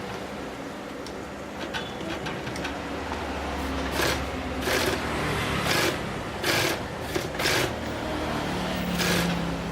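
Typical GC0303CX walking-foot industrial sewing machine running, with a steady low motor hum. From about four seconds in come a series of short bursts of noise about a second apart.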